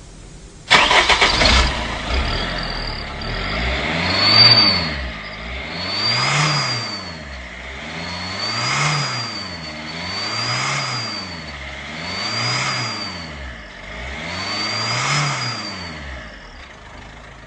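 Car engine fitted with a Turbo Whistler exhaust whistle, bursting into life about a second in and then revved about six times. Each rev brings a high whistle that rises and falls with the engine speed, like a turbo spooling up.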